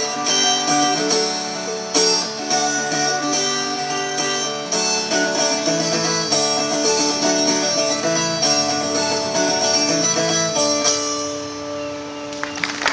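Acoustic plucked string instruments playing an instrumental tune, with notes ringing on; the playing thins out and its last notes ring down near the end.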